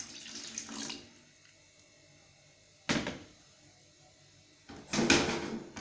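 Water poured from a plastic basin into an aluminium pot, stopping about a second in. Then two knocks: a short one about three seconds in, and a louder clatter near five seconds.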